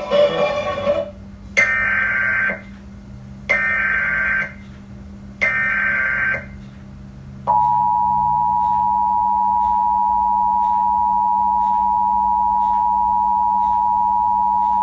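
Emergency Alert System tones: three roughly one-second bursts of the screeching SAME digital data header, evenly spaced. About seven seconds in, the steady two-tone EAS attention signal begins and holds.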